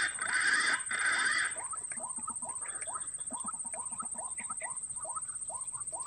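Short rising animal calls repeated about three times a second over a high, steady whine; a hissing noise stops about a second and a half in.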